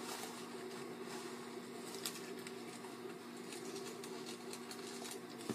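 Quiet room tone: a steady low hum with a few faint ticks and taps, one about two seconds in and one near the end.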